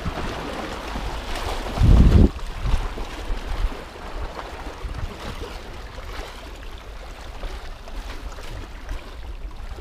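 Small waves washing against breakwater rocks, with wind on the microphone; a loud, low buffet about two seconds in.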